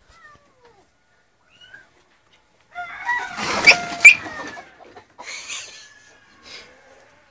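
Animal cries: a few faint, falling squeaks, then a loud, harsh burst of squawking about three seconds in, and a shorter, noisier burst a couple of seconds later.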